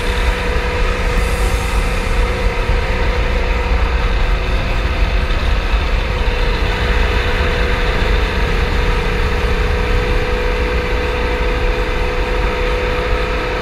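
Sea-Doo personal watercraft engine running steadily at high speed, its drone holding one pitch, over a rough rushing of wind and water.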